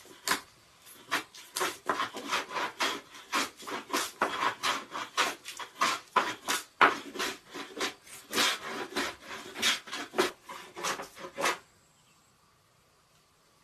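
Hand plane shaving a wooden board in quick, repeated scraping strokes, about two to three a second, stopping near the end.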